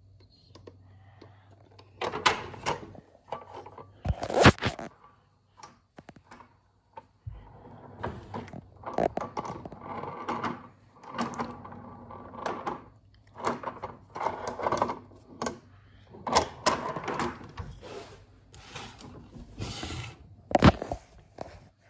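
Handling noises: irregular clicks, knocks and rustling as a die-cast Lionel O scale freight car and its clear plastic packaging tray are moved about on a wooden table, with a few sharper knocks near the start and near the end.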